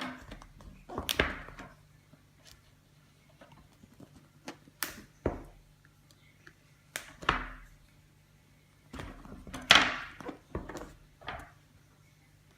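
A knife cutting through packaging and a cardboard box being handled and opened: irregular scrapes, knocks and rustles, the loudest just over a second in and about ten seconds in.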